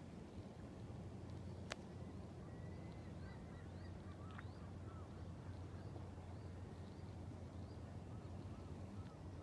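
Distant birds calling, a string of short faint rising-and-falling calls, over a low steady rumble. One sharp click a little under two seconds in.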